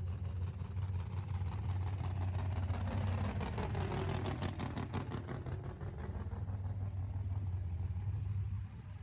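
Vehicle engine running with a steady low hum, swelling louder through the middle and easing off near the end.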